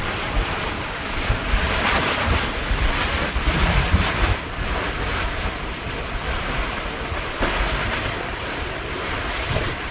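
Ocean surf washing against the shore, with wind buffeting the microphone, a continuous rushing noise that swells about two and four seconds in.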